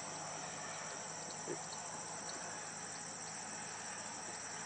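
Steady high-pitched chorus of insects trilling, with a faint hiss beneath.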